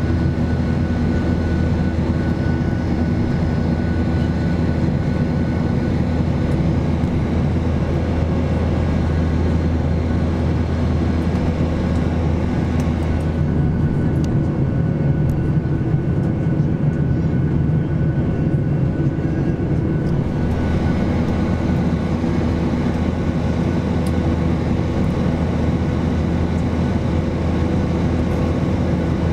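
Steady cabin noise of a Boeing 737-800 in flight: the drone of its CFM56-7B turbofan engines and rushing airflow, a deep hum with a few steady tones on top. The higher hiss drops away for several seconds about halfway through, then comes back.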